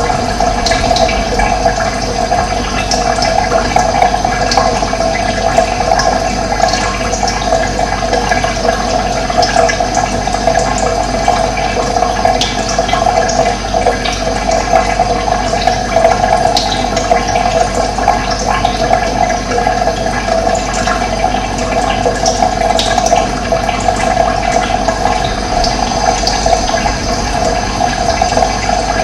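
Steady running water flowing continuously, with occasional brief bird chirps over it.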